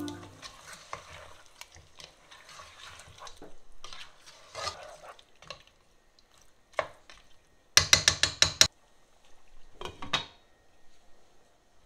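A cooking spoon stirring chicken pieces in a stainless steel pot, with soft scraping strokes against the pot. About eight seconds in there is a quick run of loud metal clinks, and near the end a glass lid is set down on the pot.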